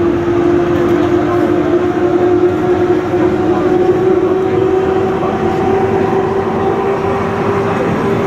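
Loud, steady whine of aircraft and ground machinery on an airport apron over a rushing hum, with the pitch creeping slightly upward.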